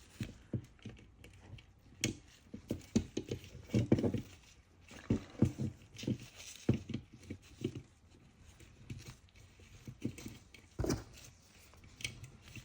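Plastic parts of a vacuum cleaner head being handled and fitted together by hand: irregular light clicks, taps and rustling, with a sharper knock near the end.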